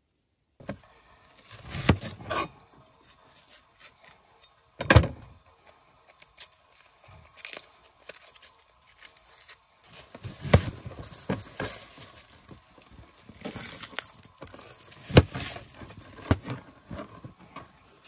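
Kitchen knife chopping vegetables on a plastic cutting board: irregular knocks and light clatter, with a few sharp strikes of the blade on the board, the loudest about five seconds in and another near fifteen seconds.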